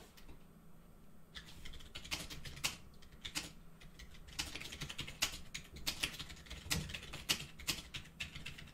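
Typing on a computer keyboard: uneven bursts of quick keystrokes, starting about a second in.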